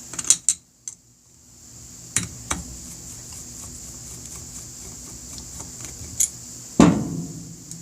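Small metal tools and carburetor parts being handled on a work surface: a few sharp clinks and clicks, then a heavier knock about seven seconds in.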